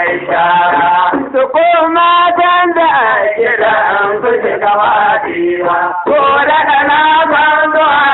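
A man singing a Hausa traditional (gargajiya) song in a chanting style, with long held, slightly wavering notes and a short break about six seconds in.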